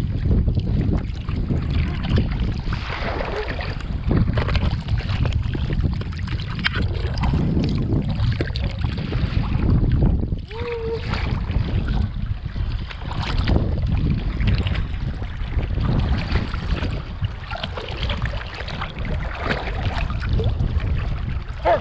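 Steady rush of wind on the microphone over a low rumble, as heard riding in a moving boat.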